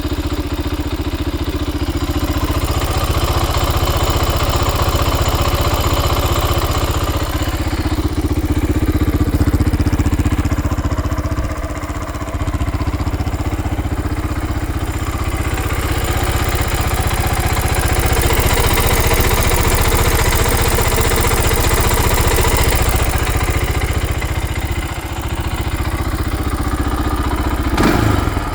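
Honda TRX300EX ATV's single-cylinder four-stroke engine running at idle, its speed rising and easing a little a few times, with one sharp knock near the end.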